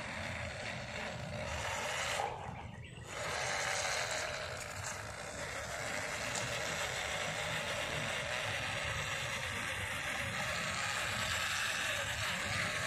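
MN99S 1:12 RC crawler's electric motor and gearbox whining as it drives over dirt, the pitch wavering with the throttle. The sound drops out briefly about two to three seconds in.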